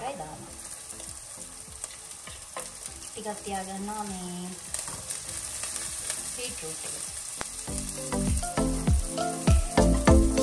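Food sizzling as it fries in oil in a pan, with stirring. About three-quarters of the way through, background music with a strong beat comes in and grows louder.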